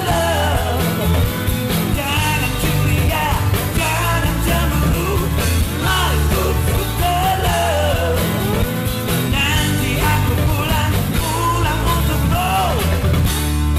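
Background music: a song with a singing voice over steady low instrumental notes.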